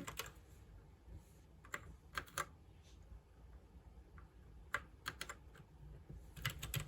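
Keys of an RGB computer keyboard being pressed: scattered, faint clicks, some in short runs of two or three, with gaps between.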